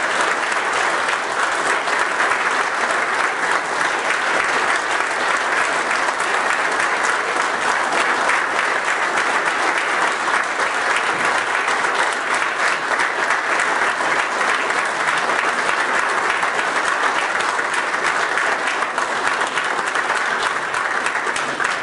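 A large audience applauding at length in a hall, a dense steady clapping that does not let up. It is a standing ovation: the audience is on its feet.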